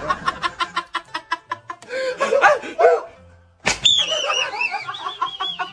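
Men laughing in quick rhythmic bursts. About three and a half seconds in comes a sudden sharp hit, followed by a high wavering sound that slowly falls in pitch, with music.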